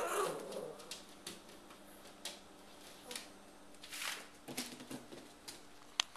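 A golden Labrador puppy moving about on newspaper spread on the floor: a run of light paper rustles and scattered clicks, with a louder rustle at the start and a sharp click near the end.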